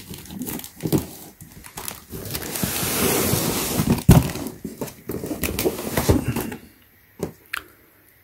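Large cardboard box being handled and turned over on carpet: cardboard scraping and rubbing with several dull thumps, then much quieter after about six and a half seconds apart from a few light clicks.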